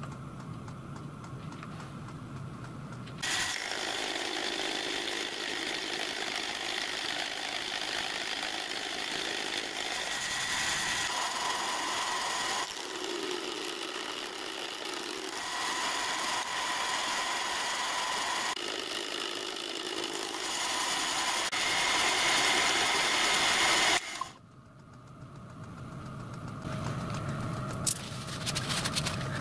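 Milling machine running with a single-point fly cutter cutting gear teeth into a small steel blank on a dividing head, taking the teeth to full depth. The machine sound starts about 3 seconds in, is steady and changes every few seconds as each tooth is cut, and stops abruptly near the end.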